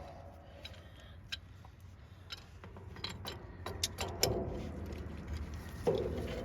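Scattered light metallic clicks and taps, with a couple of louder knocks about four and six seconds in: tools and hardware being handled while working on a tractor's canopy bolts.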